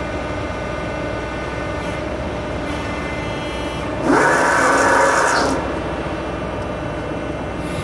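CNC hydraulic press brake running with a steady hum. About four seconds in, a louder whine with a hiss comes in for about a second and a half as the ram presses the sheet into the bend, then it drops back to the hum.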